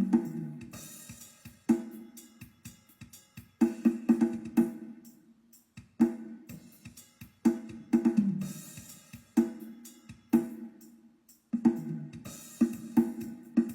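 Drum-heavy music played through a loudspeaker cabinet fitted with Kane drivers during a speaker test: clusters of punchy drum hits with cymbal splashes, pausing briefly about every two seconds.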